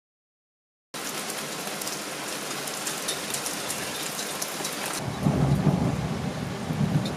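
Silence for about a second, then steady rain falling on a slatted balcony table and a tiled balcony floor. About five seconds in the rain sound gets louder and deeper.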